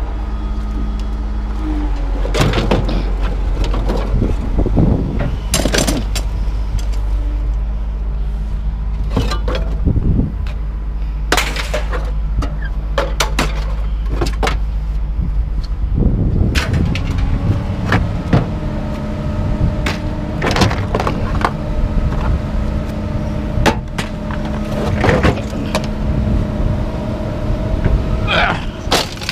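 An engine running steadily, its pitch shifting a couple of times, under repeated clanks and bangs of scrap metal being unloaded.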